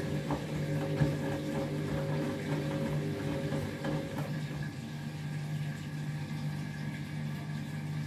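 Front-loading washing machine's drum motor humming as the drum turns the wet load in a distribution tumble ahead of an intermediate spin, with water sloshing. The motor's note changes and gets a little quieter about four seconds in.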